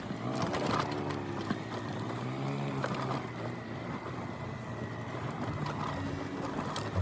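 Yamaha Cygnus 125 scooter's single-cylinder engine running under way, its pitch rising and falling as the throttle opens and closes.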